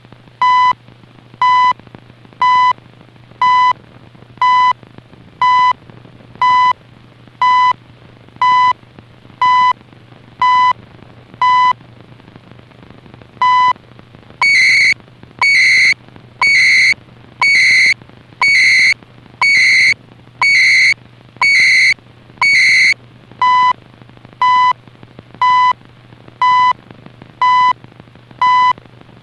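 CHU shortwave time signal received on a portable shortwave radio: a short 1 kHz tone pulse every second over receiver hiss and a steady low hum. One second's pulse is skipped, then nine pulses carry warbling modem-like timecode data bursts before the plain ticks resume.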